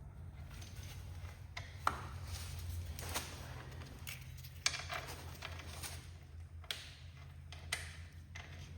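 Light metallic clicks and scrapes of a bolt, flat washers and a lock nut being fitted and tightened on a garden tractor's transmission case, with a handful of sharp taps among them. A low steady hum runs underneath.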